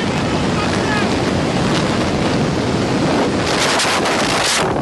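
Loud rushing wind buffeting the microphone, a steady roar with a stronger gust about three and a half seconds in.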